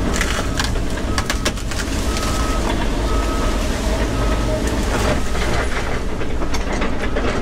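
Volvo 140 excavator's diesel engine running steadily under load while the broken-up tree is shoved into a pile, with sharp cracks and knocks of wood and branches breaking. A machine's warning alarm beeps about once a second through it.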